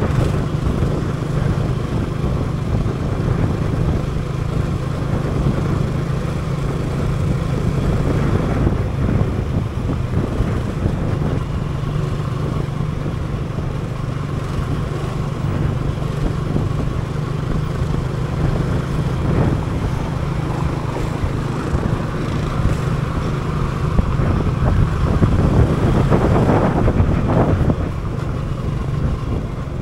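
Motor scooter's engine running steadily while riding along a city street, with road and wind noise and other traffic around it.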